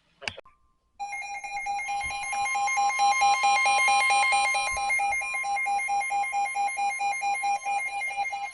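A short click, then from about a second in a weather alert radio's alarm sounds: rapid, steady electronic beeping with a second steady tone underneath.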